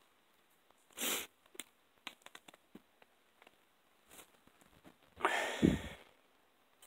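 Handling noise from a phone camera being moved: a short rustle about a second in, a few faint light clicks, then a louder rustle with a low thud about five seconds in as the camera swings round.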